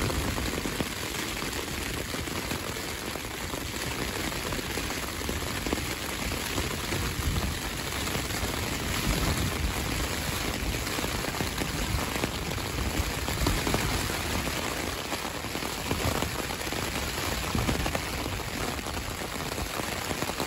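Rain pattering steadily on a Hilleberg Enan tent's flysheet, heard from inside, with wind gusts buffeting the fabric in uneven low rumbles.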